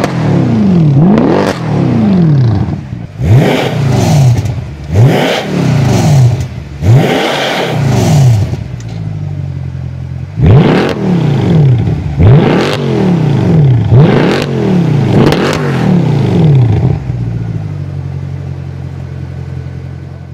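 Mercedes-Benz E63 AMG V8 with an iPE aftermarket exhaust, revved in a string of short, loud blips, each rising and dropping back, some with a crackly rasp. It settles to a steady idle near the end.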